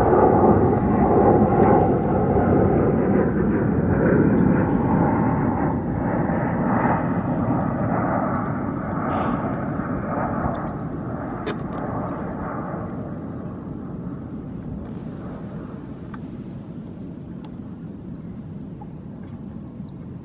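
Boeing 737 jet airliner on final approach passing close by: a loud jet roar with a faint steady whine, fading gradually as the plane moves away toward the runway.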